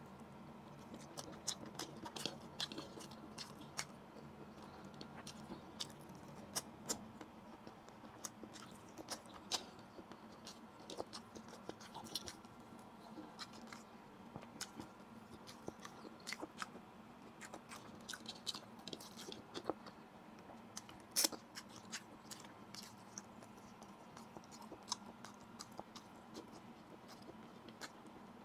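A person chewing grilled fish, rice and vegetables eaten by hand, with many irregular sharp mouth clicks and small crunches. One click about three-quarters of the way through is louder than the rest.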